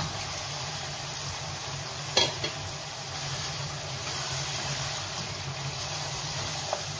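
Mutton, fried turnips and carrots sizzling in a pan of masala while being stirred with a spatula, over a steady low hum, with one sharp knock of the spatula against the pan about two seconds in.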